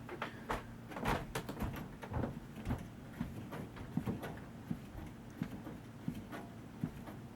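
Light, uneven clicks and knocks of things being handled, about two a second, with no motor running.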